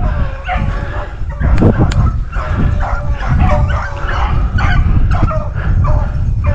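A pack of rabbit hounds baying while running a rabbit's track: many overlapping, drawn-out bawls and yelps, several a second.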